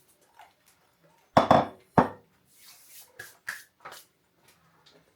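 Tableware being handled: two sharp knocks, about a second and a half and two seconds in, followed by a few lighter clicks and clinks.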